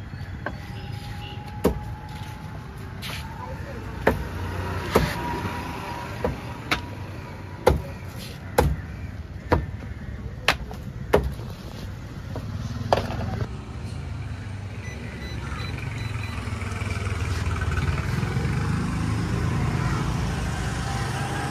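About a dozen sharp, irregular knocks in the first half. Then a low engine rumble swells as a motor vehicle passes close by.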